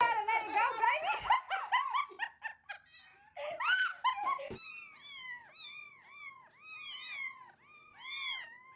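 Dog whining: a quick run of high-pitched cries over the first few seconds, then steady repeated whimpers about two a second.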